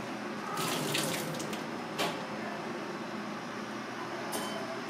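Hot cooking water poured from a saucepan into a stainless-steel sink, splashing and draining through a plastic colander. A sharp clank follows about two seconds in and a lighter knock near the end, over a steady background hum.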